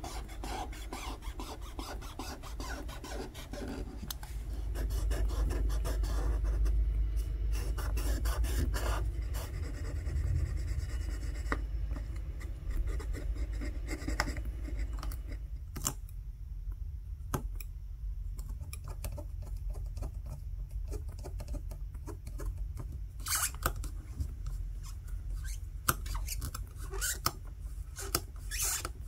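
Dense scratchy rubbing and scraping as adhesive residue is worked off a Samsung Galaxy S20's metal mid-frame, with cloth wiping, over a steady low hum. It quietens for a while past the middle, then a run of sharp scratches and clicks comes near the end.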